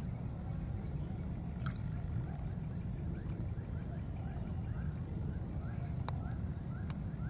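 Outdoor ambience: a steady low rumble under a constant thin high tone. From about three seconds in comes a run of short rising chirps, two or three a second, with a couple of faint clicks near the end.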